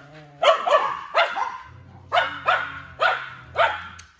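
Dogs barking in a quick run of about seven sharp barks, some in pairs, during a squabble among the dogs.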